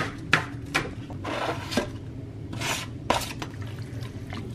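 Chef's knife chopping on a plastic cutting board: a few sharp knocks in the first second, then the blade scraping across the board, with more knocks after it.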